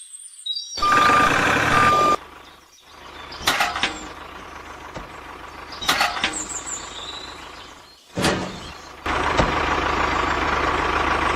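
Added truck sound effects: a loud engine stretch with two reversing beeps about a second in, several quick swishes, then a steady engine sound near the end that cuts off abruptly.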